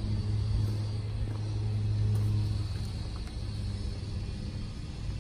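A low, steady motor hum, strongest over the first three seconds and then easing off.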